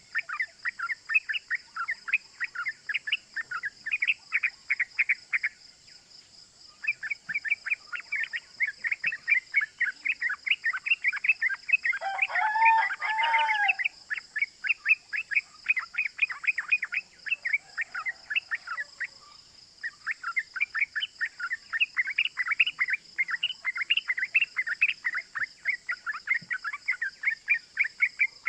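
Yellow-vented bulbul (trucukan) calling in long, fast runs of 'cuk cuk' notes, several a second, with two short pauses. A louder, lower looping phrase comes about halfway through. A faint steady high buzz runs underneath.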